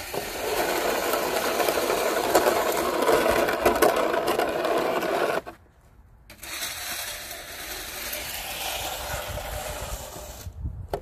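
Plastic snow shovel scraping over a snowy asphalt driveway. One long, loud push stops abruptly about five and a half seconds in, and after a short pause a second, quieter scrape follows.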